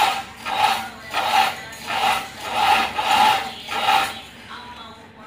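Hand-cranked wire-coiling machine turning, winding wire onto a steel rod: a rhythmic rubbing scrape of about seven strokes, roughly one every two-thirds of a second, stopping about four seconds in.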